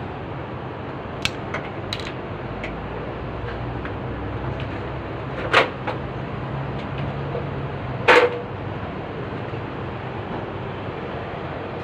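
Sharp knocks and clanks from handling the air-conditioner outdoor unit's casing and parts, a few light ones early and two louder ones about five and a half and eight seconds in, over a steady low hum.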